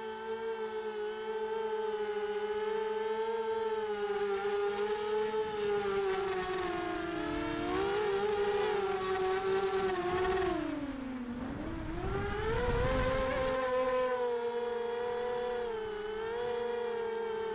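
A 3D-printed tricopter's electric motors and propellers whining in flight, the pitch wavering with throttle. About ten seconds in, the pitch drops sharply and then climbs back, with a brief low rumble of wind.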